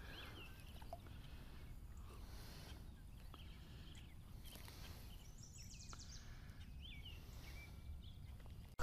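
Faint bird song, short chirping phrases repeating every second or two, over a quiet outdoor background hiss.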